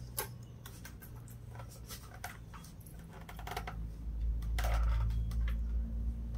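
Scattered small clicks and taps of hard plastic as a football helmet and its mouthpiece are handled at the facemask, with two fuller knocks a little past the middle. From about four seconds in, a low rumble rises and becomes the loudest sound.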